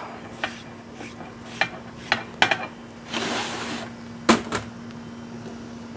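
A knife and bowl knocking and clinking as chopped herbs are scraped off a cutting board into a bowl: several light, separate clicks and taps, with a short scrape about three seconds in. A low steady hum runs underneath.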